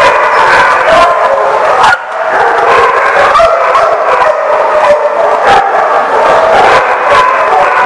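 Dogs barking and yipping over one another in a loud, continuous din that barely lets up, with a brief lull about two seconds in.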